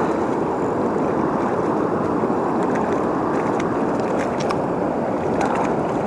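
Steady rush of fast-flowing water from a flooded dam, with a few faint clicks in the second half.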